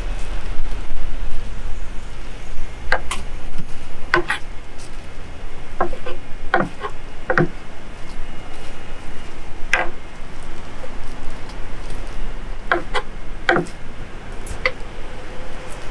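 Irregular knocks and clacks of cooking utensils at a food stall, about a dozen sharp strikes, some in quick pairs, over a steady low rumble.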